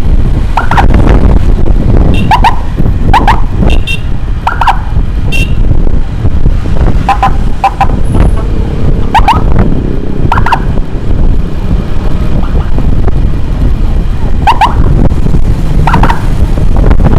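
Motorcycle riding at speed, with loud wind and engine rumble on the microphone. Over it come about ten short, pitched beeps that bend in pitch, spaced irregularly, as in signalling to clear traffic for an escorted ambulance.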